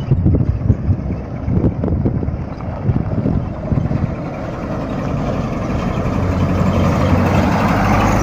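Small pickup truck's freshly rebuilt gasoline engine running as the truck drives up toward the listener. It grows louder and steadier near the end as the truck arrives.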